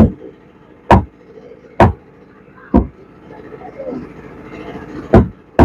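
Machete chopping into tuna on a wooden chopping block: a series of sharp chops about a second apart, a pause of about two seconds, then two more quick chops near the end.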